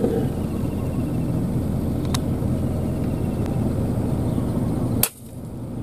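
Car engine idling, heard from inside the cabin, then about five seconds in a single sharp crack of an air rifle shot, after which the background drops sharply.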